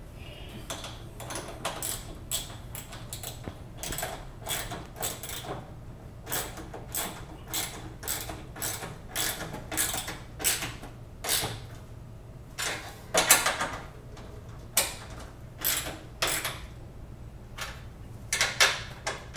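Hand tools tightening bolts on a 3D-printed fuel filter mount: a long irregular run of short clicks and rattles, a few each second.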